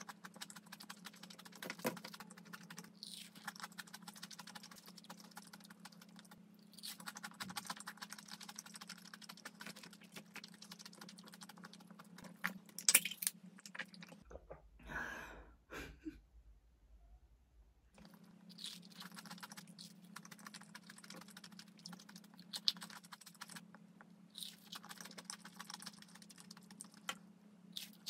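Close-miked chewing of crispy fried chicken, a steady crackly crunch of the crust. About halfway through the chewing stops for a few seconds of drinking and gulping from a bottle, then the crunching chewing resumes.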